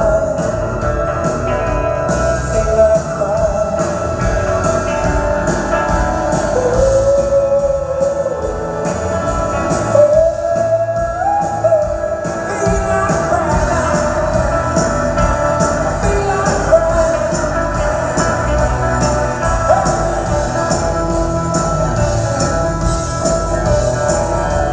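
Live rock band playing: a male lead singer carrying the melody over electric guitar and a steady drum beat.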